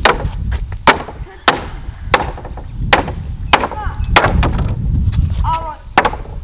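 Hockey sticks whacking a ball and the ground during a game: a run of sharp, separate wooden clacks, roughly one every half second to second, over a low rumble.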